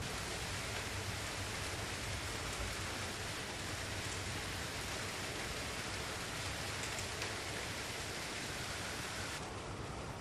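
Steady rain, an even hiss that does not let up.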